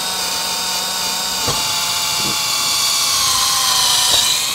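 Cordless drill running steadily as it bores a pilot hole down through asphalt shingles and roof decking in search of a rafter, the motor's whine dipping briefly in pitch twice as the bit loads up.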